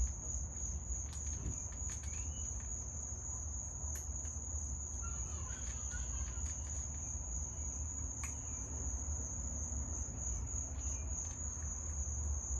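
Steady high-pitched insect chorus, crickets trilling without a break, over a low steady rumble.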